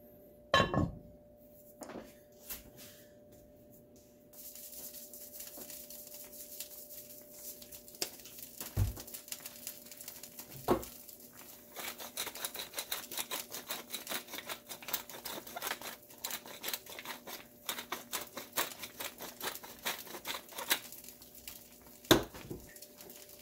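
Chicken-and-dumpling broth bubbling in a cast iron Dutch oven: dense fine crackling and popping that starts a few seconds in, with a few louder knocks and a steady low hum underneath.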